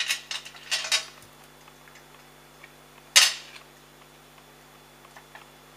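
Paper card stock being handled and pressed down onto a card base on a cutting mat: a few short rustles and taps, the loudest a sharp one about three seconds in.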